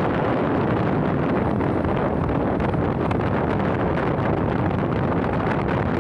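Wind rushing over the microphone of a moving motorcycle, with the bike's engine and tyre noise running underneath at a steady level.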